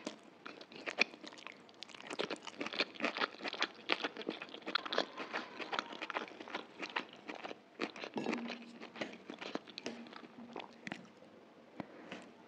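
A person chewing a mouthful of chicken chow mein noodles: rapid, dense clicking chewing sounds that thin out after about eight seconds and grow sparse near the end.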